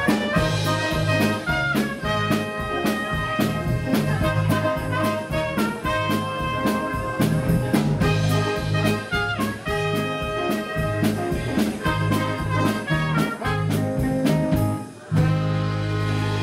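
Live band of trumpet, saxophone, accordion, guitars and drums playing an instrumental passage over a steady beat, the brass carrying the melody. About fifteen seconds in the beat stops briefly and the band holds one long chord.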